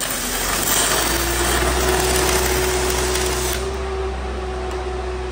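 A 7018 stick electrode burning at 800 amps. The arc strikes suddenly and crackles and sizzles loudly for about three and a half seconds until the rod is used up. The engine-driven welder drones steadily underneath.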